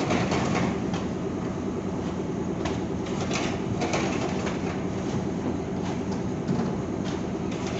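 Cement-loading machinery running with a steady drone, with short clatters from about three seconds in.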